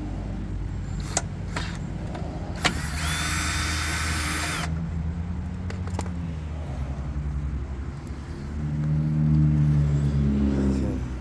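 An engine running steadily, with a few sharp clicks and a loud hiss lasting about two seconds. Near the end it gets louder and a little higher in pitch.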